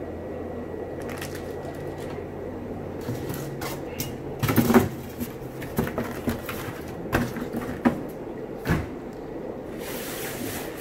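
Knocks, clicks and scrapes of a fish shipping box and its packing being handled and opened, with a steady low hum underneath in the first half.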